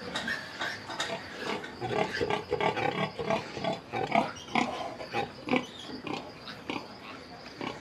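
Domestic pigs grunting: a quick run of short grunts, thickest through the middle seconds.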